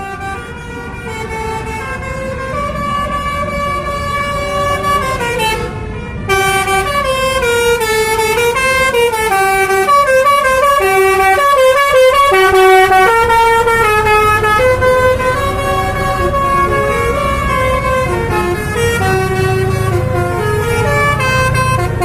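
Indonesian bus telolet horn, a multi-tone air horn, playing a melody with notes stepping up and down, over the low running of the bus engine. It grows louder about six seconds in.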